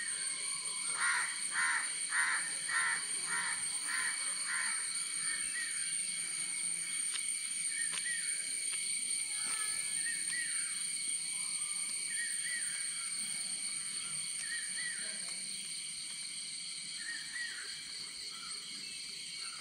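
Early-morning village ambience. A steady high-pitched hum runs throughout. A bird gives a quick series of about seven harsh calls, followed by scattered shorter calls from birds.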